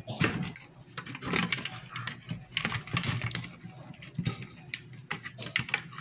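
Irregular small clicks and rattles of push-on wire connectors being worked off the terminals of an air conditioner's starting capacitor.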